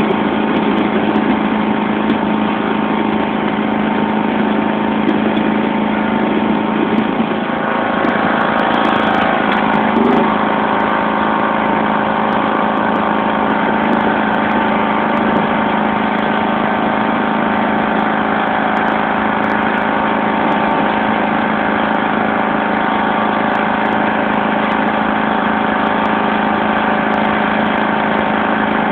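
John Deere LX176 lawn tractor's 14 hp OHV engine running steadily as the tractor pushes snow with its front blade.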